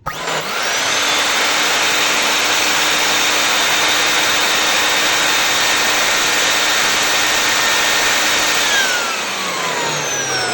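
Ametek 119559-00 vacuum cleaner motor, freshly rebuilt with a rewound armature, new commutator, rear bearing and brushes, on its first test run. It starts abruptly, spins up to a steady high-speed whine within about a second, and about nine seconds in is switched off and winds down with a falling pitch. It runs cleanly.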